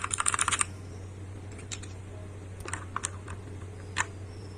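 Typing on a keyboard fitted with Akko mechanical switches: a rapid burst of key clicks that stops under a second in, then a few scattered single clicks.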